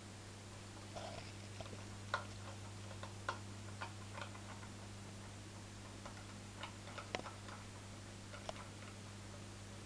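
Faint steady low electrical hum with scattered soft clicks and ticks, a few a second, at irregular intervals.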